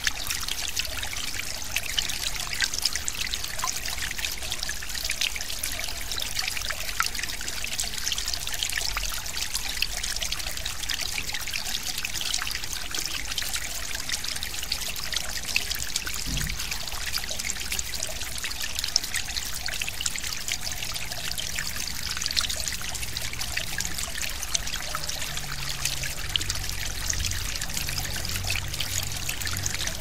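Forest stream babbling and trickling steadily, a constant watery hiss full of small splashes and gurgles.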